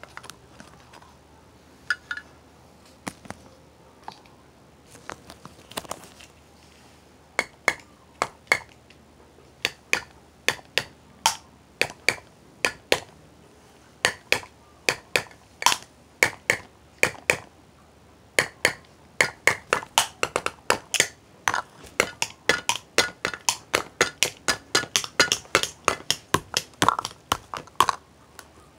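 Drumming: sharp taps, scattered at first, then coming faster and denser in quick runs through the second half.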